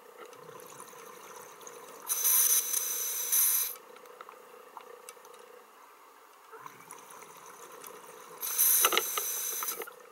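Scuba diver breathing out through a regulator underwater: two bursts of rushing exhaust bubbles, each about a second and a half long, some six seconds apart, over a faint steady hum.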